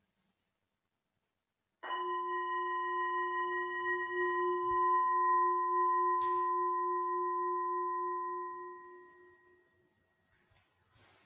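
A small handheld singing bowl struck once about two seconds in, ringing with a low hum and several higher overtones that slowly fade away over about eight seconds. A light knock sounds partway through the ringing.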